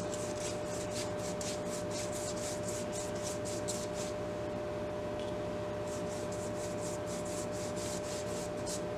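Paint being rubbed and scrubbed onto a paper book page in quick, repeated scratchy strokes, a few a second, with a short lull around the middle.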